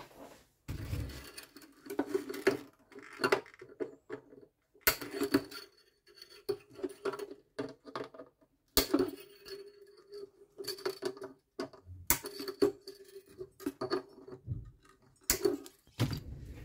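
Side cutters snipping old steel mandolin strings off the tailpiece pins: several sharp snips a few seconds apart, with light metallic scraping and rattling of the loose string ends between them.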